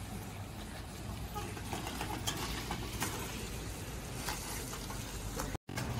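A bicycle carrying several riders rolling over a rough dirt road: a steady low rumble with a few faint clicks.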